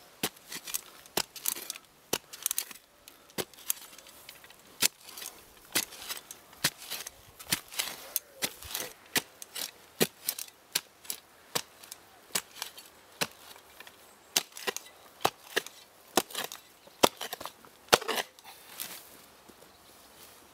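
Short-handled spade chopping repeatedly into rock-hard, dry soil: sharp strikes, roughly two a second. Near the end the strikes give way to a brief scrape and rustle.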